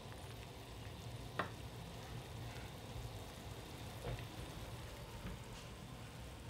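Water at a rolling boil in a stainless steel saucepan: a steady, faint bubbling hiss, with a couple of faint clicks.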